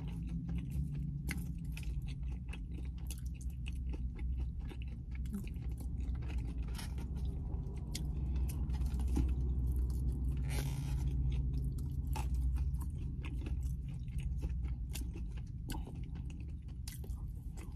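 Close-up chewing and biting of buffalo chicken salad, with crunches and the clicks of a fork picking at a plastic takeout tray, over a steady low hum.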